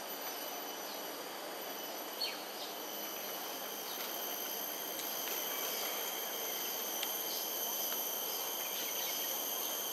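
Steady insect chorus: several thin, continuous high-pitched tones over a constant background hiss, with a few brief high chirps and one short sharp click about two seconds in.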